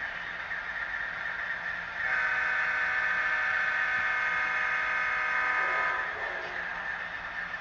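A train horn blows one long, steady multi-note chord for about four seconds, starting about two seconds in and fading out.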